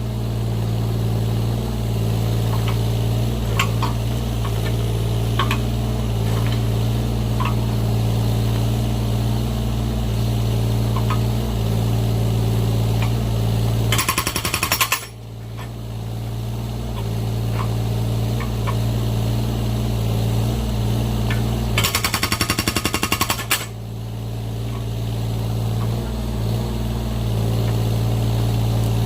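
Excavator engine running steadily, broken twice by short bursts of rapid hammering from its hydraulic breaker attachment splitting firewood, about halfway through and again about three quarters through, the second lasting about a second and a half.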